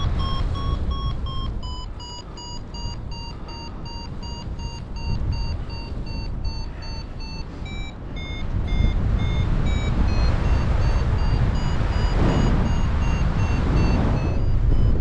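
Paragliding variometer beeping about four times a second, its pitch stepping up and down and jumping higher about halfway through: the climb-rate tone of a glider in rising air, faster and higher as the lift strengthens. Wind rushes over the microphone underneath, louder in the second half.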